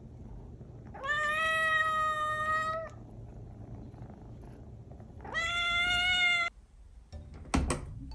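A hungry kitten meowing loudly at its owner to demand food: two long drawn-out meows a few seconds apart, each rising at the start and then held. A couple of sharp knocks come near the end.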